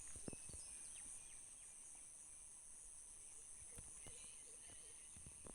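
Insects trilling steadily in a high, unbroken pitch, faint under scattered small bird chirps and a few soft knocks.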